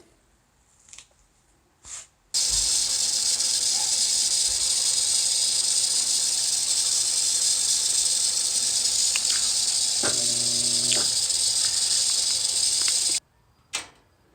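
Kenmore 500 series washer filling through its repaired fill valve: water rushing in as a steady loud hiss that starts abruptly about two seconds in and cuts off sharply near the end, as the valve opens and shuts. A couple of faint clicks come before it.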